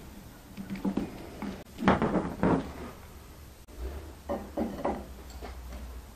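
Scattered clunks and knocks of metal rigging hardware and an orange engine hoist being handled. About four seconds in comes a quick run of three knocks, as the hoist's hydraulic jack is worked.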